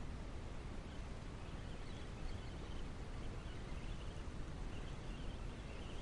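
Steady outdoor background noise with a fluttering low rumble, and faint high wavering chirps over the second half.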